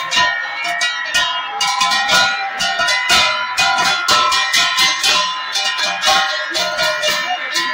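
Metal percussion struck over and over in quick, uneven strokes: brass cymbals and a hand-held brass gong clashing, with ringing tones held between the strikes.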